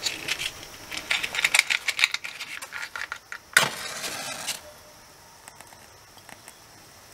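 Small rattles and clicks of a matchbox and matches being handled, then a match struck about three and a half seconds in, flaring with a hiss for about a second.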